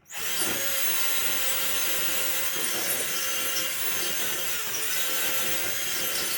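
Power drill starting suddenly and running steadily, its bit boring into the wall to widen a hole so that a wall anchor will fit.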